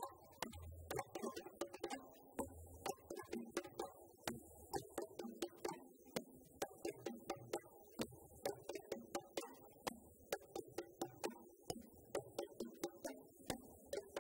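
Live djembe ensemble drumming: hand slaps and stick strikes on several djembes and bass drums in a fast, even rhythm.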